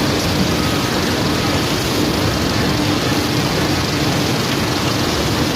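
Sand washing machine running: a steady, loud, noisy mechanical din with a faint hum underneath.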